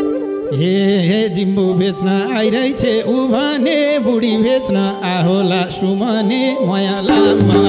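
Instrumental break in live Nepali dohori folk music: a solo melody with bends and vibrato carries most of it while the low drum and bass drop out, and the full band with madal comes back near the end.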